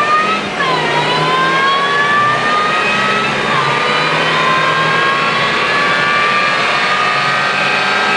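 Supercharger whine from a car accelerating hard, over the engine note. The high whine climbs steadily in pitch, drops suddenly at gear changes about half a second in and again about three and a half seconds in, then climbs again.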